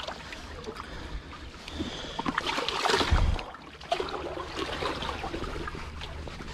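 Water splashing and sloshing as a hooked conger eel thrashes in a shallow rock pool while it is held for unhooking, loudest about three seconds in.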